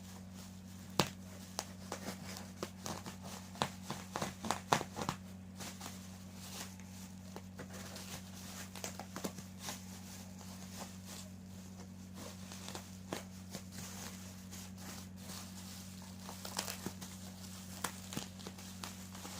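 Packaging being handled and unwrapped by hand: irregular crinkling, rustling and tearing with sharp clicks, busiest in the first few seconds and again near the end, over a steady low hum.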